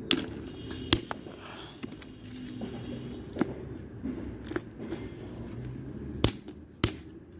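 Hammer blows striking a padlock to break it open: about six sharp knocks at uneven intervals.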